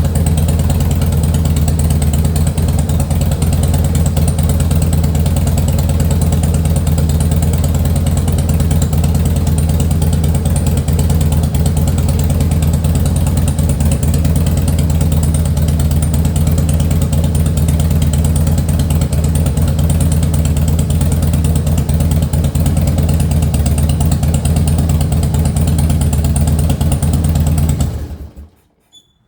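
Harley-Davidson Heritage Softail's air-cooled V-twin engine idling steadily with its deep, even rumble, then stopping near the end.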